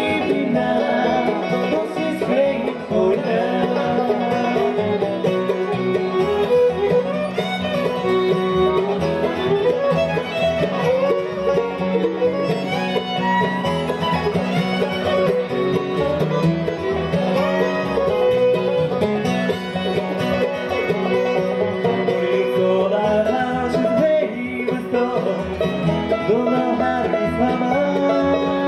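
Live acoustic bluegrass band playing a song together: fiddle, banjo, mandolin and acoustic guitar over upright bass.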